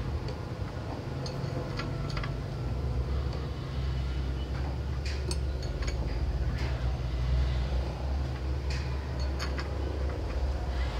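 A steady low rumble like a running motor, with scattered light clicks and taps.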